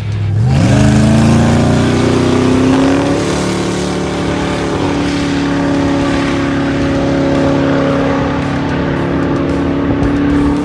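Supercar engine accelerating hard. Its note climbs steeply over the first three seconds, then holds at a high, steady pitch as the car pulls away down the runway.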